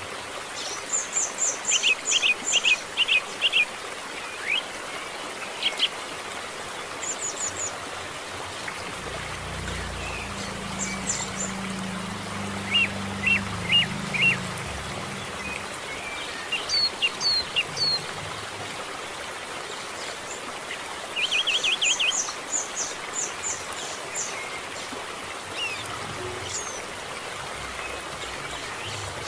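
Young canary chick chirping in several short, quick trains of high peeps, the begging calls of a chick waiting to be hand-fed, over a steady hiss.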